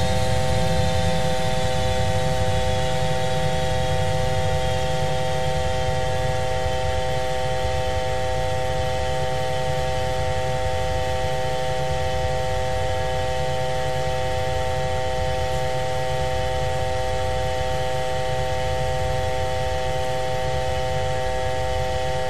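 Jet engine noise of an Airbus A350 in flight, as reproduced in a flight animation: a steady low rumble with several held tones, and a high whine that slowly drifts lower as thrust comes back and the airspeed decays.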